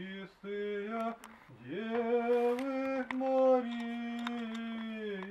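Voices singing slow Orthodox church chant in long held notes that step up and down in pitch, with a short breath break before a new phrase about a second and a half in.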